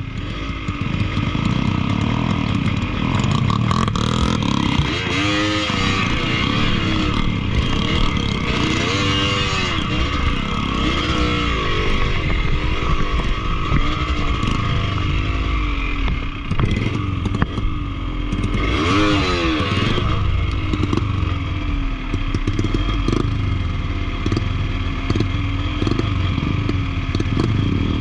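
Yamaha DT125's two-stroke single-cylinder engine, running with an open carburettor, idling with a few quick throttle blips that rise and fall in pitch.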